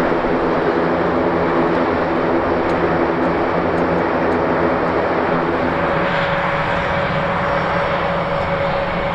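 Airbus A400M's four turboprop engines running loud and steady, with a stack of propeller tones over the engine noise. About six seconds in, the lower tones fade and a single steady higher whine takes over.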